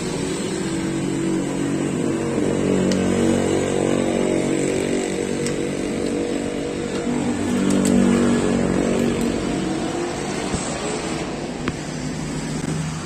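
A small motorcycle engine running, its pitch rising and falling, loudest about eight seconds in.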